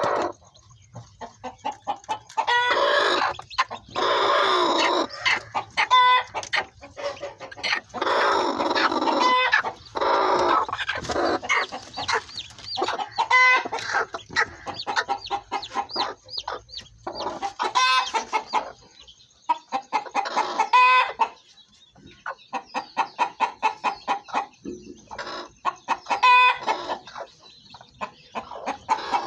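Chickens clucking in rapid runs, with several longer, louder harsh calls from a hen sitting on eggs as she is disturbed.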